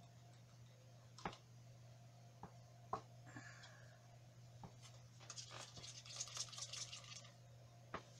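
Faint handling sounds as gloved hands move plastic paint cups on a table: a few light clicks and taps, and about two seconds of scratchy rustling near the middle, over a steady low hum.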